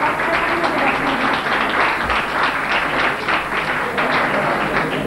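An audience applauding: many hands clapping at once, dense and steady.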